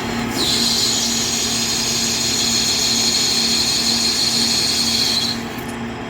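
LeBlond metal lathe facing a hardened steel shaft with a carbide insert: a high-pitched whine of the cut starts about half a second in and stops after about five seconds, over the steady hum of the running lathe.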